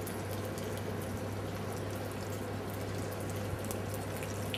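Duck breast searing skin-side down in a hot oiled pan: a steady frying sizzle with small crackles, over a steady low hum.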